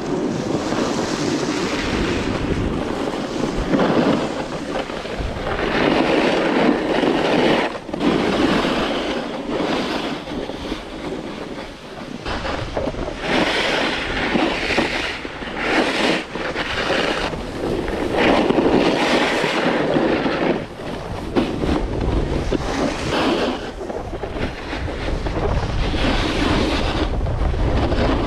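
Wind noise on the microphone and the scrape of edges carving across hard-packed, mostly artificial snow, swelling and fading every couple of seconds with the turns.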